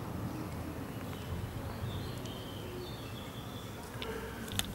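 Outdoor background with a steady low rumble and a few faint, short bird chirps. Near the end come a couple of small sharp clicks as a wooden pipe is handled.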